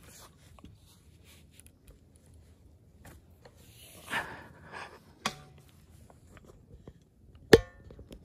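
Rope and gear being handled on a metal tree stand as a crossbow is tied off and lowered: soft rustling and scraping, a sharp click about five seconds in, and near the end one loud metallic knock that rings briefly.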